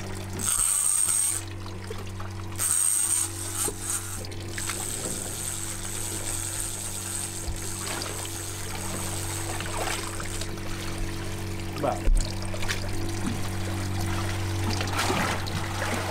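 A boat's outboard engine runs at trolling speed with a steady low hum. Over the first ten seconds a high-pitched fishing-reel drag sounds in spurts as a hooked fish takes line, with water sounds around the boat.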